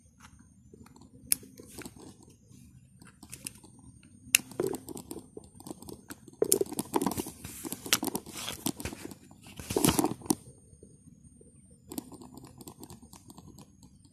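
Handling noise from a Glock 26 pistol turned over in the hands. Sharp clicks of its parts come several times, with scraping and rustling of hands on the frame and magazine between them, the busiest stretches about five, seven and ten seconds in.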